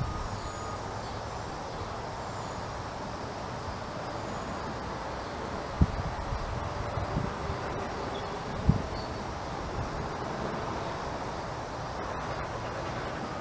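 Steady outdoor background hum with a constant thin high-pitched whine, broken by two soft low thumps about six and nine seconds in.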